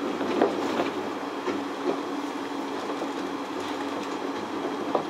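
Skyrail rope-driven suspended car running along its elevated track, heard from inside the car: a steady hum with one held tone, and a few sharp clicks and knocks, several in the first two seconds and one more near the end.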